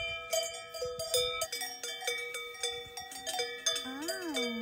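Several cowbells on grazing cattle clanking at irregular moments, bells of different pitches each ringing on after it is struck. Near the end, a short call rises and falls in pitch over the bells.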